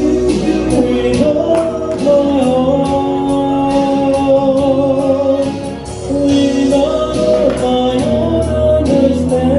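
A song playing: a singer holding a slow melody over a band, with a steady beat.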